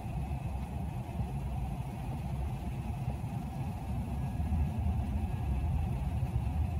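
Steady low rumble of distant road traffic, swelling slightly about two-thirds of the way through.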